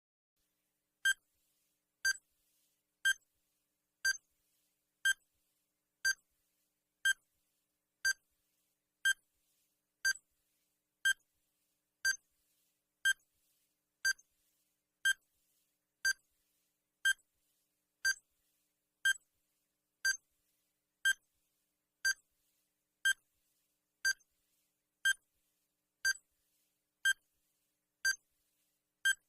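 Electronic countdown-timer beep sound effect: a short, high-pitched beep repeating steadily once a second, marking each second counted down.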